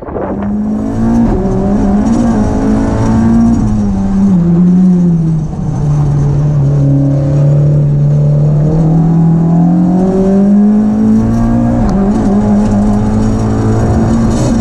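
Renault Clio 172's 2.0-litre four-cylinder engine running hard under load. Its pitch drops about four seconds in, stays low for several seconds, then climbs back and holds high near the end.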